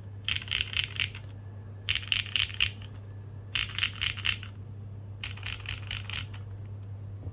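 Custom mechanical keyboard with Cherry MX Black linear switches on an aluminium plate and GMK keycaps being typed on: four quick flurries of keystrokes, each about a second long, with short pauses between.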